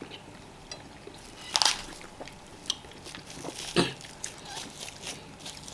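Close-miked eating sounds: wet chewing and lip smacks from someone eating fufu with vegetable soup, with two sharper smacks about one and a half and four seconds in.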